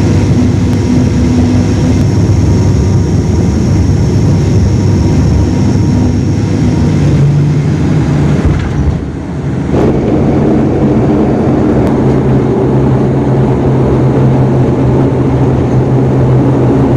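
Cabin noise of a propeller airliner on its landing approach: a loud, steady drone of the engines and propellers with a low hum. About nine seconds in the drone dips briefly, then returns with a stronger, steady low hum.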